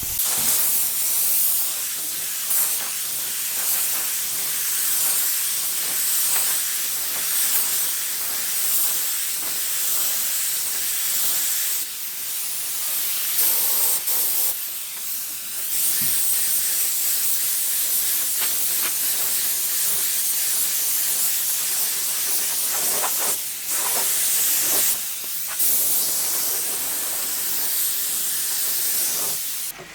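Mini HVLP spray gun hissing steadily as it sprays white paint, stopping briefly a few times when the trigger is let go.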